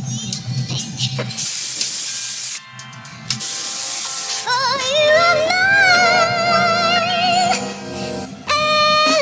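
Background music: two short bursts of hiss, then a wavering, vibrato-laden vocal melody from about four seconds in.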